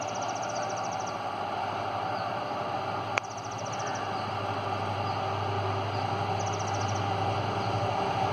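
Distant twin WDG4 diesel locomotives approaching with a train, a steady low hum slowly growing louder. A bird's high, rapid chirping trill repeats three times, and there is one sharp click about three seconds in.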